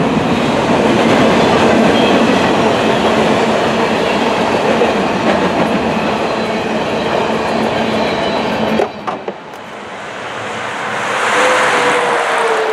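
Freight train of covered grain hopper cars rolling past, the wheels clattering over the rails. The noise drops away suddenly about nine seconds in as the last car goes by. A car on the nearby highway then approaches, its sound swelling and dropping slightly in pitch near the end.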